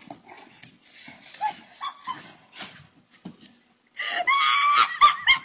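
Faint scuffling and short scattered sounds as a large dog tugs at a person on a wooden deck. About four seconds in, loud, high-pitched laughter breaks out in short bursts.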